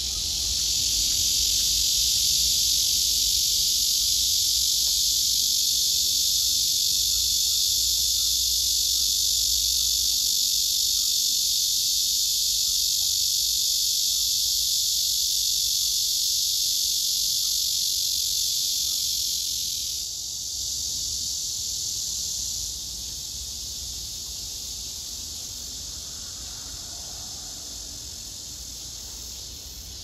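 Male cicada singing a loud, steady, continuous buzz. The song shifts about two-thirds of the way through, then drops to a quieter level and carries on.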